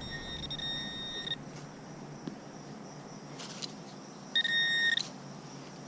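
Metal detector's steady electronic tone signalling a buried metal target. The tone sounds at the start and stops about a second and a half in, then comes again, louder and shorter, near the end.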